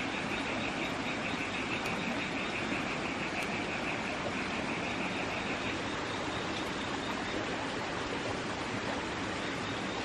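Steady rainforest ambience: an even hiss, with insects chirring in a high, rapidly pulsing band that stops about six seconds in.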